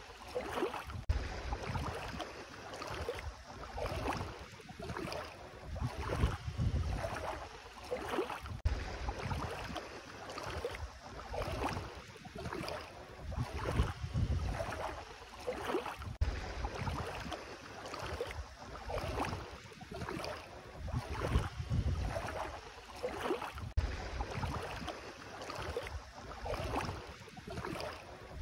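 Bare feet wading through ankle-deep sea water, a swish and slosh with each step at about one step a second, over a low rumble of wind on the microphone.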